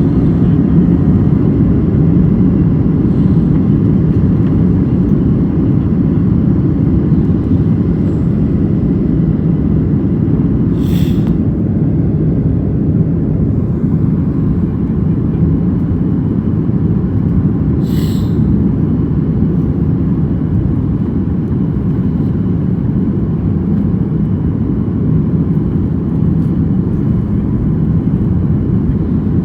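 Steady low rumble of an airliner's engines and airflow heard from inside the cabin, holding an even level. Two brief hissing sounds stand out, about a third of the way in and again past the middle.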